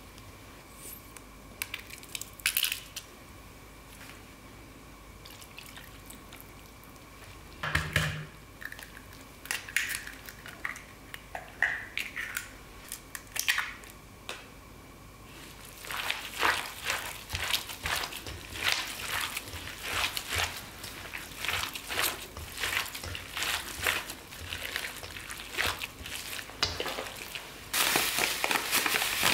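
Ground beef being mixed by gloved hands in a stainless steel bowl. The first half has scattered soft taps and clicks, with one dull knock about 8 seconds in. From about halfway there is dense, wet squishing as the mince is kneaded, and near the end a steady hiss as bread crumbs pour onto the meat.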